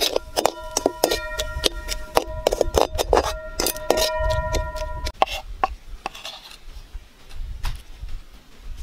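Metal spatula knocking and scraping against a metal wok while stirring a thick tomato-and-chili sauce, the wok ringing with a steady tone between strikes. The strikes come fast for about five seconds, then thin out and grow quieter.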